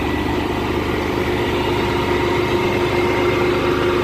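Farm tractor's diesel engine running steadily with an even hum, turning a PTO-shaft generator that powers a 15 hp submersible water pump.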